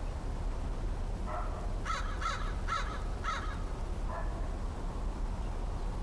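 American crow cawing: a softer call, then four quick caws in a row about two seconds in, and one more soft call after, over a low steady background rumble.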